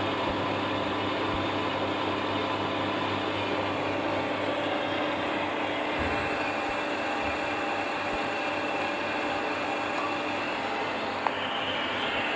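Electric water pump running with a steady hum against a shut ball valve. The owner says it is not building the pressure it should. A single sharp click near the end.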